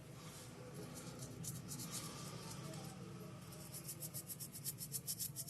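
Quick, light scratching strokes of a small tool, about eight a second, in two runs, the second near the end, over a steady low electrical hum.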